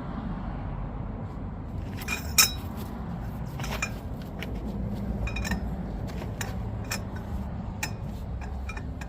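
Metal hand tools clinking and knocking, a handful of separate sharp clinks at uneven intervals, the loudest about two and a half seconds in, over a steady low rumble.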